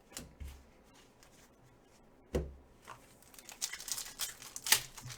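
Trading cards and packs being handled at close range: a few soft knocks, a thump a little past two seconds in, then a quick run of crinkling, rustling noises near the end.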